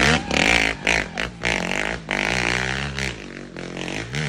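Dirt bike engine revving hard under load on a steep hill climb, its pitch rising and falling several times as the throttle is worked, with a few sharp knocks.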